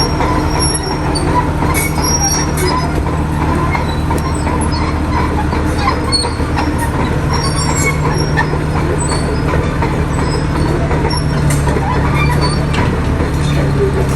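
Diesel engine of a tracked earthmoving machine running steadily under work, with steel crawler tracks clanking and squealing throughout. The engine note shifts slightly a little after eleven seconds in and again near the end.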